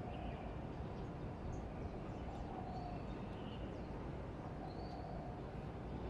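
Steady low rumble of city traffic, with several faint, short high bird chirps scattered through it.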